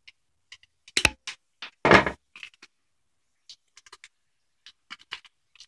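Small metallic clicks and knocks of a Master Lock padlock being handled with its key still in it, with one louder short clunk about two seconds in.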